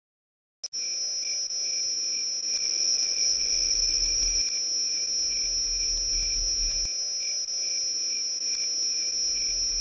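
Crickets trilling in a steady high-pitched chorus that starts suddenly less than a second in, after silence, with a faint low rumble that comes and goes underneath.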